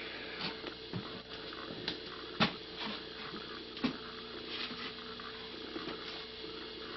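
Late-1970s Olson furnace switched on and running with a steady electrical hum. Scattered sharp ticks and light knocks sound over it, the loudest about two and a half seconds in and again near four seconds.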